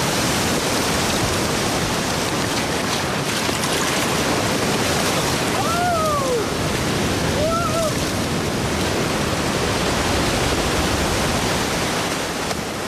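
Sea surf: a steady wash of breaking waves on a beach, with two short gliding cries near the middle, beginning to fade near the end.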